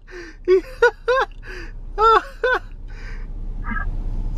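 A man's voice in short, separate bursts with no clear words. Then a steady rush of background noise builds over the last second or so.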